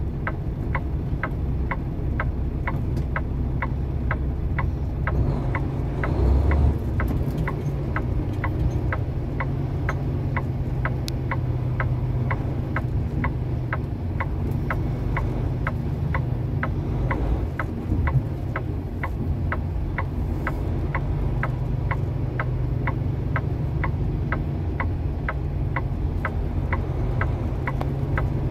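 Turn signal ticking steadily, about two ticks a second, over the low drone of the truck's engine heard from inside the cab.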